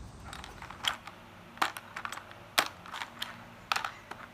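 Small hard pieces clicking and clacking as they are handled and set down, one sharp click about every second, some in quick doubles.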